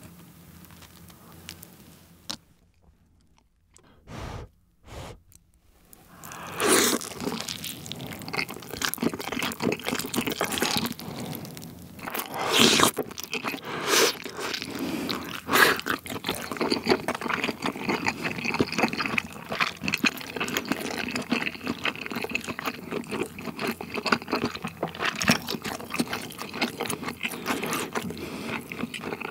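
Close-miked biting and chewing of thick-crust cheese pizza, starting about six seconds in after a near-quiet spell. The crust crunches sharply several times amid continuous wet, sticky chewing of a heavy load of cheese.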